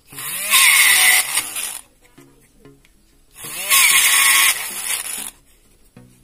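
A homemade mini drill, a small motor with a bit, drilling through a white plastic strip in two bursts of about two seconds each, the motor whining and the bit grinding into the plastic. Faint background music plays between the bursts.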